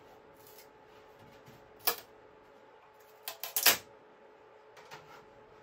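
A 3D print popping loose from a flexible steel build sheet as the sheet is flexed: one sharp crack about two seconds in, then a quick run of louder cracks and clicks a second and a half later, and a faint click near the end.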